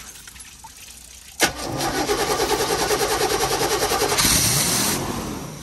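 Motorhome's gasoline engine cranking on its starter with a fast, even pulsing, beginning about a second and a half in, then catching and running about four seconds in.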